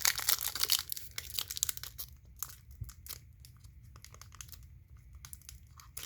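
Foil booster-pack wrapper crinkling and tearing as it is pulled open by hand. It starts as a rapid run of crackles that thins out after about two seconds.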